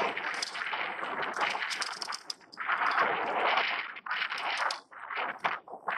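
Gusting wind buffets the microphone in swells of rushing noise, with scattered sharp clicks and knocks as a just-landed crappie is handled and unhooked in a small fishing boat.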